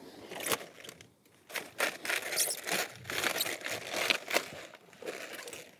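A knife cutting through a firm head of red cabbage: a run of crisp crunching and crackling as the blade splits the tightly packed leaves, with a short pause a little after one second.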